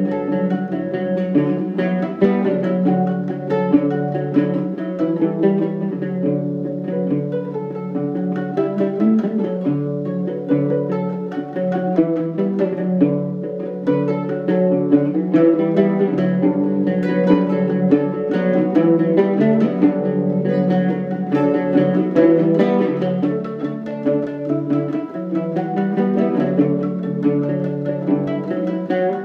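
Two double-course plucked string instruments of the lute/mandolin family playing a melodic duet of quick, continuously picked notes.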